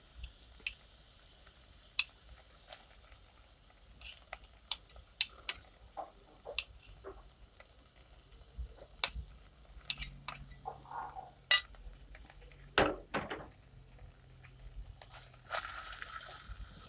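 A metal spoon tapping and scraping against a bowl and a clay cooking pot as ginger-garlic paste is added to hot oil and worked with a wooden spoon, in scattered sharp clinks. A steady sizzling hiss starts near the end as the paste fries.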